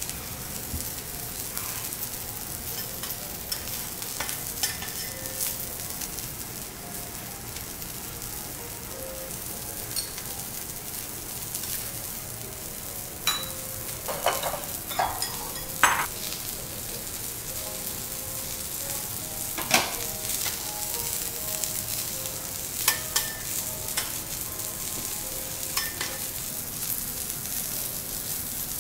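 Steady sizzling of food frying on a hot teppanyaki steel griddle, with occasional sharp clicks and taps of utensils on metal and ceramic.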